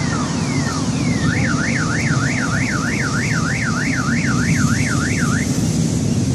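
Car alarm sounding: a couple of falling chirps, then a fast up-and-down warble, about three cycles a second, that stops about a second before the end. A steady low rumble runs underneath.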